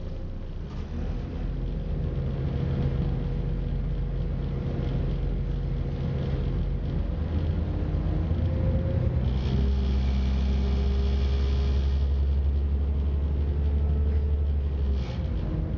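Class 172/0 diesel multiple unit pulling away from a station, heard from inside the carriage: a steady low drone from its underfloor diesel engine under load, with running noise from the train. The drone grows louder and heavier about nine seconds in and dips briefly near the end.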